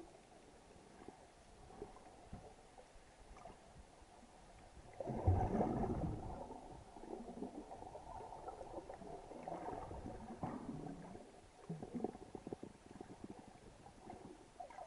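Underwater sound picked up by a camera in its housing: muffled water movement with scattered small clicks and crackles, and a louder rush of noise about five seconds in that lasts a couple of seconds.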